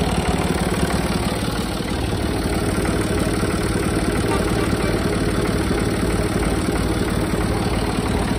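Kubota M1-55 tractor's three-cylinder diesel engine idling steadily, with the slightly rough note typical of this three-cylinder engine.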